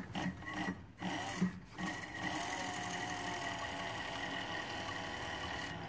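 Cobra NP-4 bell skiver running steadily with a constant whine, starting about two seconds in after a few faint handling knocks, as scrap leather is fed through the bell knife. The test cut comes out nice, clean and smooth.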